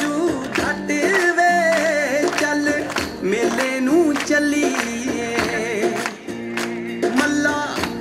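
A recorded Punjabi folk dance song played over loudspeakers: a wavering sung or played melody over a steady percussive beat.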